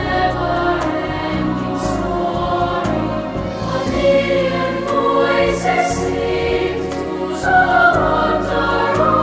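Background music with a choir singing sustained notes over a steady low bass.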